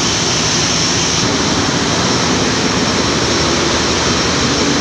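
Bulk carrier's engine room machinery running: a loud, steady noise, with a low hum coming in about three seconds in.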